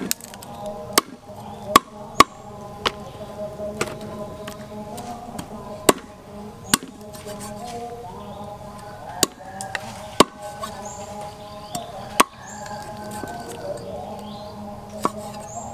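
A large kitchen knife chopping pork ribs into pieces on a thick wooden chopping board: sharp, irregular chops, roughly one every second or so.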